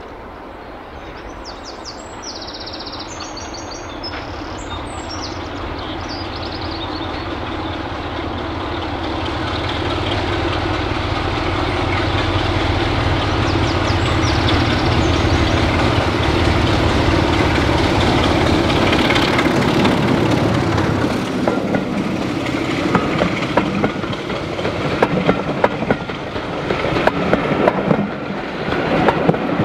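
A diesel locomotive approaching: its engine grows steadily louder for about twenty seconds. From about two-thirds of the way in, a rapid clickety-clack of its wheels over the rail joints takes over as the train passes.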